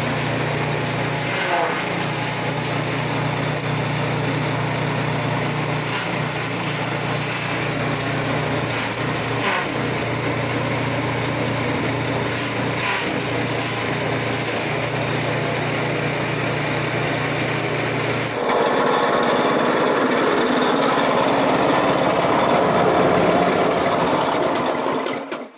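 Small chaff-cutter machine (grass and straw chopper) running steadily under load, its motor humming under the rasp of dry rice straw being chopped. About eighteen seconds in, a louder, duller sound takes over.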